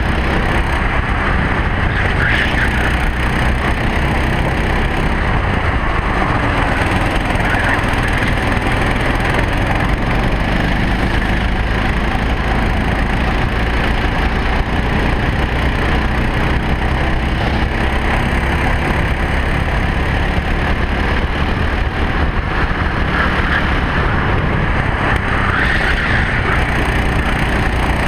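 Racing kart engine running hard on track, heard from a camera mounted on the kart, its pitch gliding up and down through the corners under a constant rush of noise.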